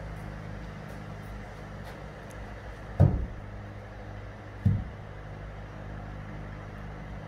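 Two heavy thuds about a second and a half apart, the second a little quieter: oak logs being set down on the stack inside a charcoal kiln. A steady low mechanical hum runs underneath.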